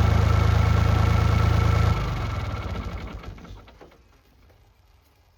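Mini excavator's diesel engine idling steadily, then shut off about two seconds in, running down with slowing pulses to a stop.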